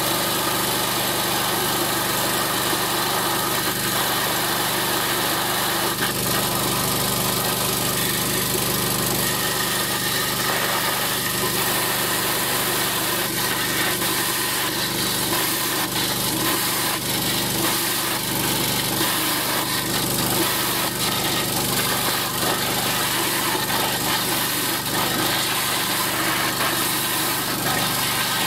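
High-pressure sewer jetter (350 bar, 21 litres per minute) running flat out: a steady engine-and-pump drone under the hiss of water jetting from a 1/4" sewer nozzle through the pipe.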